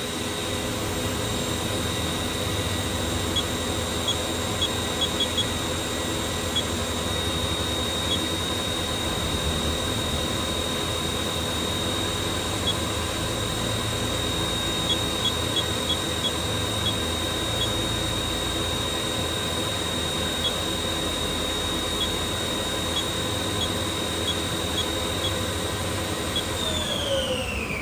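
Haas VF-8 vertical machining center's spindle running steadily at 5,000 RPM with a high, steady whine and a few scattered light ticks. Near the end the spindle winds down, its whine falling in pitch.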